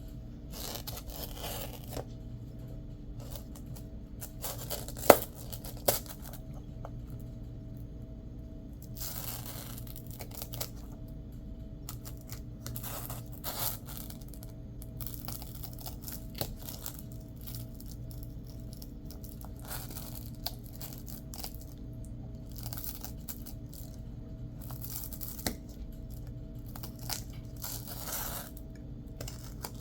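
Hand craft work on a Velcro patch: about a dozen short scratchy rasps, each under a second, with a sharp click about five seconds in.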